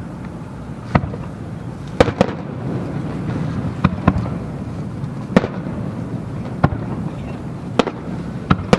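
Aerial fireworks shells bursting: sharp cracks roughly once a second, some in quick pairs, over a steady low rumble from the display.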